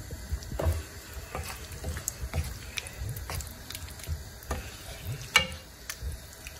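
Wooden spoon stirring pork pieces in simmering coconut cream in a nonstick frying pan, scraping and knocking irregularly against the pan. One sharper knock comes a little after five seconds in.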